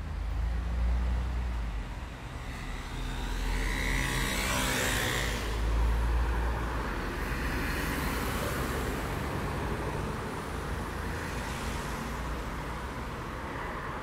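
Road traffic: several vehicles pass one after another, each swelling and fading with engine and tyre noise over a deep low engine rumble. One passing engine's pitch shifts as it goes by.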